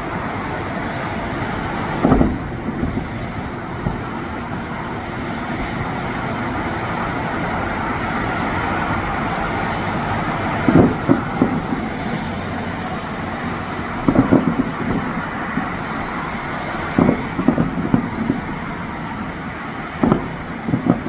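Fireworks going off, heard as clusters of short bangs: one about two seconds in, then a group of several bangs every three seconds or so from about eleven seconds on. Underneath is a steady outdoor rumble.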